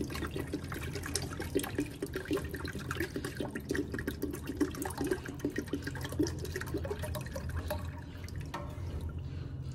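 Hydrogen peroxide pouring from a plastic bottle into a pot of warm water, gurgling and splashing steadily while a spoon stirs, easing off about a second before the end.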